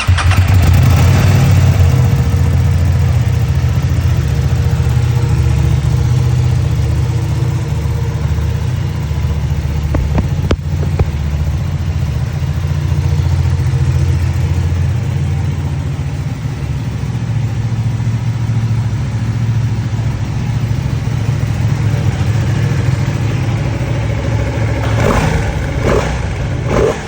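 Ducati Panigale V2's 955 cc Superquadro V-twin engine catching right at the start, then running loud and steady with a low, even exhaust note. The note shifts briefly near the end.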